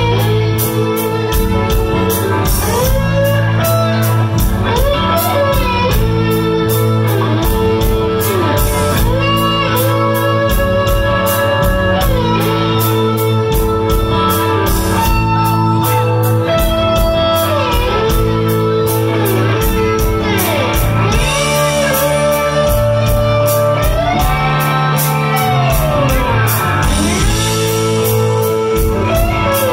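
Live rock band playing an instrumental break: an electric guitar solo with bending, sliding notes over bass, drums and cymbals.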